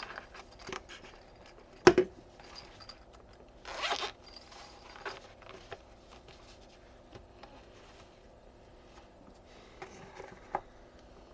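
Close handling sounds: a sharp click about two seconds in, then a short zipper rasp about four seconds in, with light clicks and rustles between and a few more clicks near the end.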